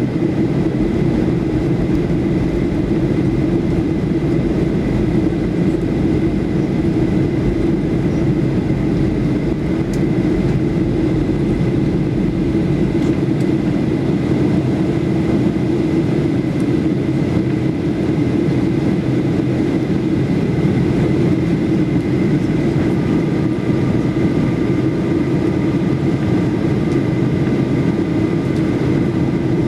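Steady cabin noise of a Boeing 737-8200 in descent: the hum of its CFM LEAP-1B engines and the rush of air over the fuselage, heard from a seat over the wing, with a thin steady whine above it. A couple of faint extra tones join about three-quarters of the way through.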